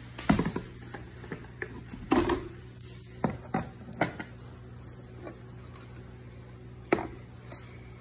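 Sharp plastic clicks and knocks as a Shark vacuum's dust cup is taken off and handled, about half a dozen over several seconds, the loudest ones near the start and close to the end.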